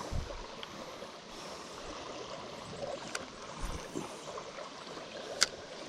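Steady rush of flowing creek water, with a few faint clicks and one sharper click near the end.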